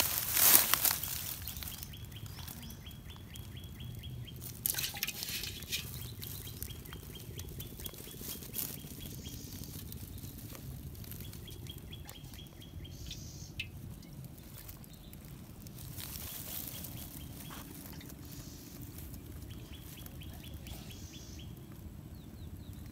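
A high, rapid ticking trill repeats several times, each run lasting one to two seconds, over a steady low background hum. Brief rustling noises come about half a second in (the loudest sound), and again around five and eight seconds in.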